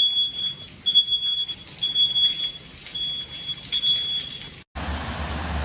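An electronic alarm of the smoke-detector kind beeping over and over, a high tone about once a second, over the hiss of running water in a flooded house. Near the end it cuts to a steady low rumble.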